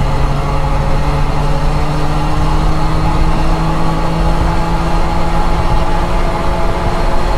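Barkas B1000 van's three-cylinder two-stroke engine running as the van drives along, its pitch rising slowly and steadily.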